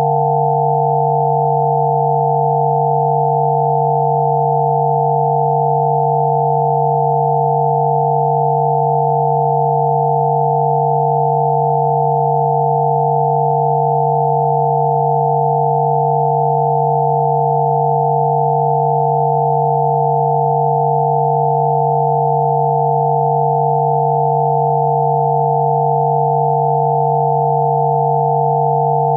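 Steady electronic sine tones of a 'healing frequency' track: one low tone with a cluster of higher tones above it, held together without any change.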